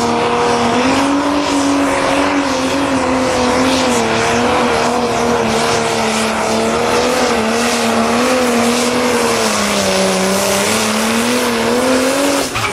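Turbocharged diesel Pro Stock pulling tractor running flat out under load as it drags the sled. The engine note wavers, sags about ten seconds in, then climbs again near the end.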